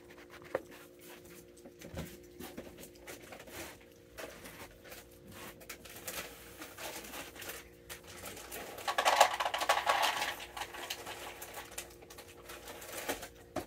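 Peanuts crunching and rattling: a run of small dry clicks, with a louder crackling, rustling stretch about nine seconds in. A faint steady low hum runs underneath.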